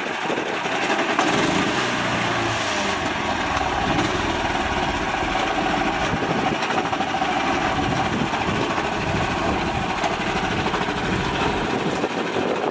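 Mini tractor's small engine running steadily as the tractor drives off towing a loaded trailer.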